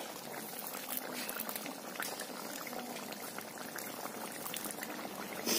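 Pork curry boiling hard in a wide iron kadai: steady bubbling with small crackles, and a short tap near the end.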